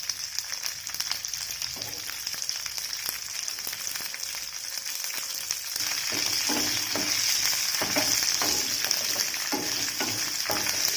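Hot oil sizzling in a pan with lentils, garlic and chopped small onions frying. About six seconds in the sizzle grows louder, and a spatula stirs and scrapes the pan several times.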